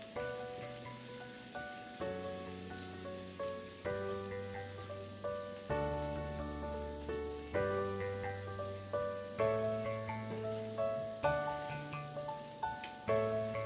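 Background music, its notes and chords changing about every two seconds. Beneath it, faint sizzling of crushed garlic and ginger frying in melted butter in a pan.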